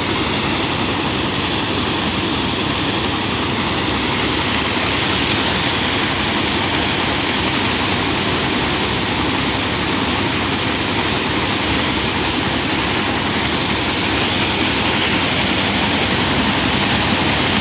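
Paddy thresher running steadily while straw is fed into it: a constant loud rushing noise over a steady, pulsing machine hum.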